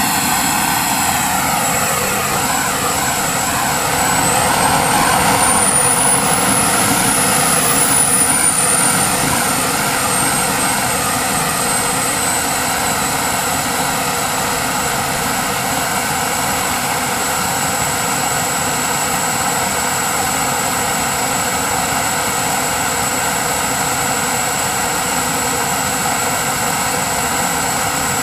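Turbine engine of a large RC sport jet model running with a steady high whine over a roar. About four seconds in, the whine rises in pitch and gets a little louder as the turbine spools up, then eases back and settles steady again by about twelve seconds.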